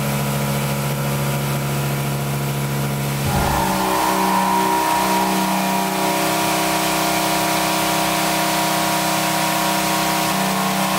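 DN Solutions DNM 5700L vertical machining center milling a solid bar of 316 stainless steel dry, without coolant: a loud, steady whine of the cutter in the metal, made of several fixed pitches. The pitches change abruptly about three seconds in, when a different cut begins, and the cut is leaving chatter on the part.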